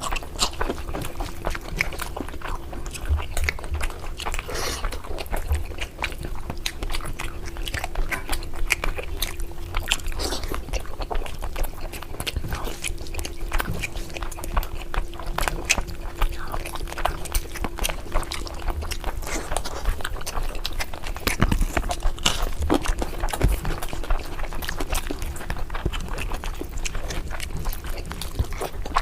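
Close-miked chewing and wet mouth sounds of people eating curry: a continuous run of small irregular clicks and smacks. A faint steady hum sits underneath for much of it.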